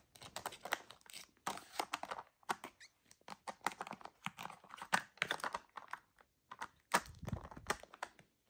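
Plastic tiles of a sliding treat-puzzle toy clicking and clacking irregularly as a white-faced capuchin paws at them and slides them, with a duller knock about seven seconds in.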